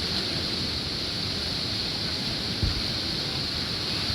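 Steady rushing of whitewater rapids, with a brief low thump about two and a half seconds in.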